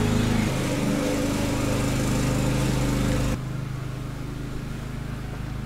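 Lawn mower engine running steadily. It drops abruptly in level about three and a half seconds in and carries on more quietly.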